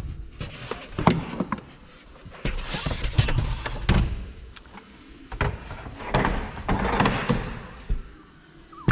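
Carpeted cargo-floor panel of a BMW X5 being lifted out of the trunk and handled: several knocks and thumps, with scraping and rustling in between.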